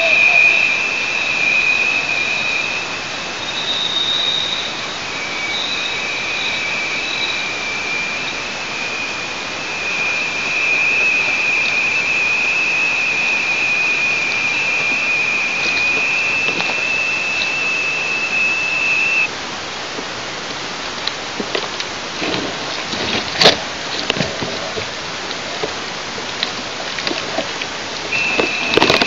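A steady hiss with a thin, high whistling tone that stops about two-thirds of the way in. After that come scattered rustles and knocks, one sharp and loud, from a person handling sticks and a plastic bag at the nest close to the microphone.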